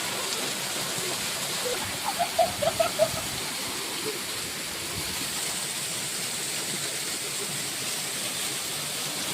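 Steady rushing of a waterfall, with brief voices about two seconds in.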